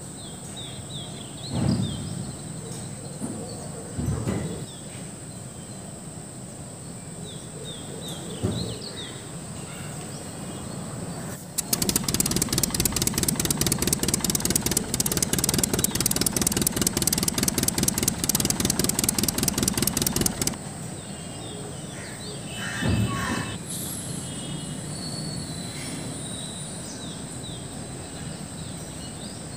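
A miniature toy tractor's small motor runs for about nine seconds in the middle, a fast, even rattle that starts and stops abruptly. Birds chirp in the first few seconds, over a steady high whine.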